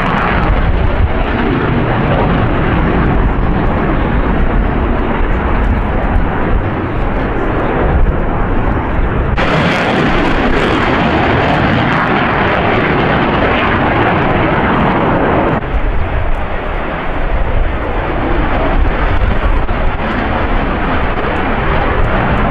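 Display aircraft flying over the airfield: loud, steady rushing engine noise. It turns brighter and louder all at once about nine seconds in and drops back near sixteen seconds.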